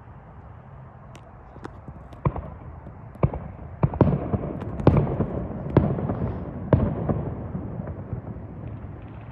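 Distant fireworks going off: a string of sharp bangs and pops, sparse at first, then coming thick and loud in the middle before thinning out, over a steady low rumble.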